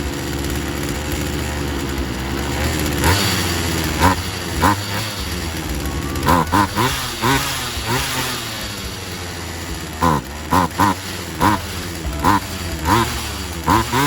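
Poulan Wild Thing 2375 two-stroke chainsaw engine running steadily, then revved in short throttle blips, about a dozen, some in quick pairs and triples, each rising and falling in pitch. The revving is a test of the carburetor mixture during tuning.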